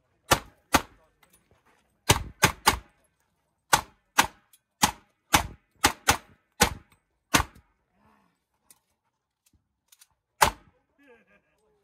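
Competition handgun fired in a USPSA stage: about thirteen sharp shots in quick pairs and short strings over the first seven and a half seconds, then a pause of about three seconds and one last shot near the end.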